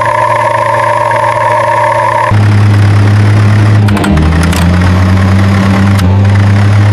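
A vehicle engine running steadily. About two seconds in, the sound changes to a louder, deeper hum that shifts in pitch a few times, with some clicks.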